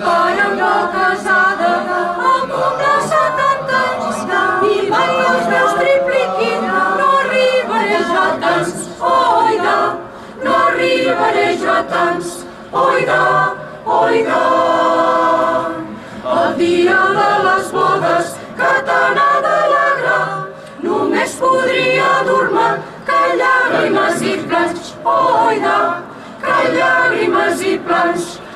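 Choir singing a cappella, sung phrases separated by short breaths and pauses.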